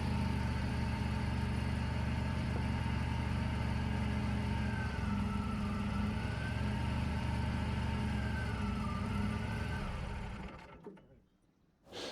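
Wood-Mizer LT40 Wide sawmill's engine running steadily at a constant pitch, with a faint wavering whine over it in the middle, fading out about ten seconds in.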